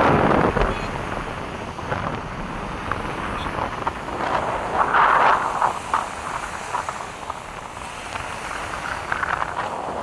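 Strong, gusty sea wind buffeting the microphone over the wash of a choppy sea, with louder gusts at the start and about five seconds in.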